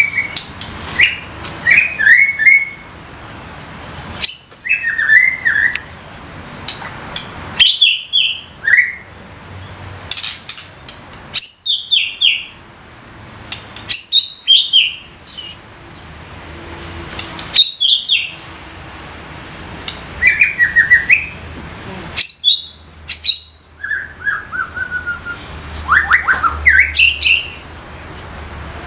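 White-rumped shama (murai batu) singing: short phrases of clear whistles and sharp clicking notes, a new phrase every two to three seconds.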